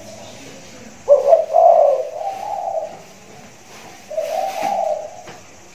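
A spotted dove (tekukur) with a deep voice cooing. It gives a multi-note coo phrase about a second in, then a second, shorter coo about four seconds in.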